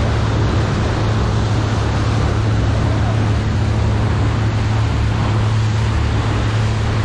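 Boat engine running steadily under way, a continuous low drone, over a steady rush of wind and water.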